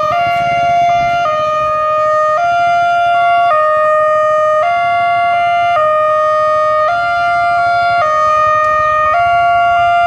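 Indonesian railway level-crossing warning siren (Wantech type) sounding its electronic two-tone alarm: a low and a high tone alternate, each held about a second, over and over.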